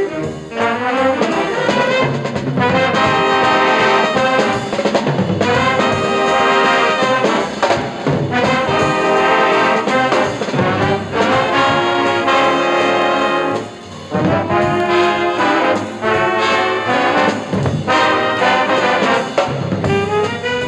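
A 1965 high school band playing a brass-led piece. The music dips briefly about two-thirds of the way through, then carries on.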